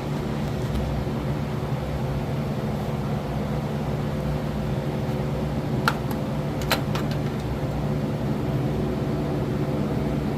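Steady low mechanical hum, like a fan or motor running, with two light clicks a little past halfway.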